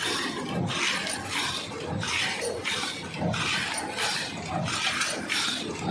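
Paper cup machine running in a steady cycle: a regular clatter and hiss repeating about every 0.7 seconds, each stroke with a low thud underneath.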